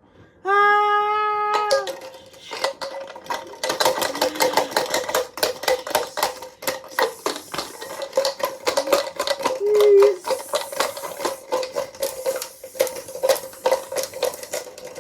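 A washing machine gives a short beep, then runs with its motor tone steady underneath a rapid, continuous clatter of hard knocks as it shakes itself apart.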